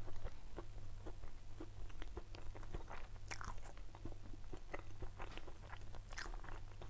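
A person chewing a mouthful of sandwich with the mouth closed: many small, irregular crunches and wet clicks, over a steady low hum.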